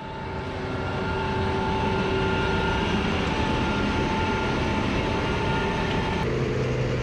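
Case IH Axial-Flow 6140 combine harvester driving past, its engine and drives giving a steady loud drone with a high whine. About six seconds in the whine drops out and a lower hum takes over as the machine moves by.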